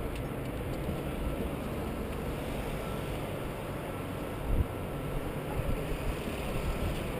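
Wind rumbling on a helmet-mounted GoPro's microphone high on the outside of a tower, a steady low buffeting with one brief louder bump about four and a half seconds in.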